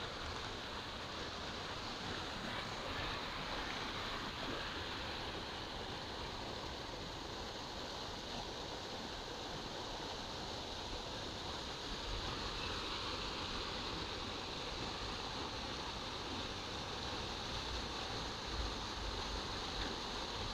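Steady outdoor ambient hiss with no clear single source, broken by a few brief low rumbles of wind on the microphone in the second half.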